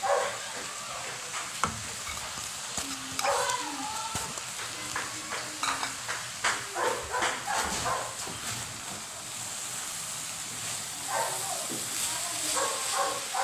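Minced fish and vegetable filling sizzling gently in a pan while it is stirred and turned with a wooden spatula, with scattered scrapes and clicks against the pan, busiest in the middle. A few short voice-like sounds come from the background.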